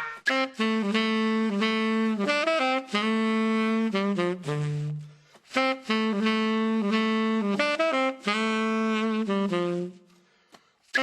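A saxophone-like tone plays a melody of held and quick notes that step and slide in pitch, with brief breaks between phrases. It fades out a little before the end.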